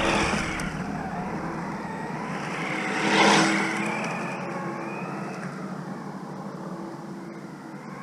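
Radio-controlled car's electric motor whining, its pitch rising and falling as the car speeds up and slows, with tyre and ground noise. It is loudest about three seconds in.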